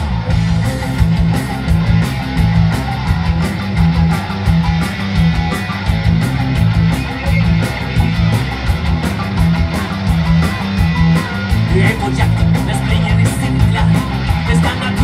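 Ska-punk band playing live, an instrumental passage with no singing. The whole band comes in at once right at the start with a steady beat and a repeating bass line.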